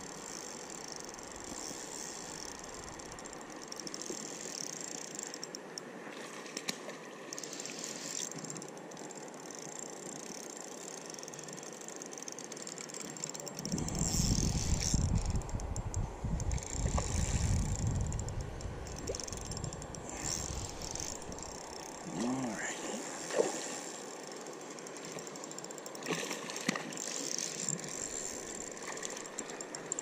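A spinning reel being cranked and the rod handled while a hooked fish is played in, over a steady high hiss. A low rumble runs for several seconds near the middle.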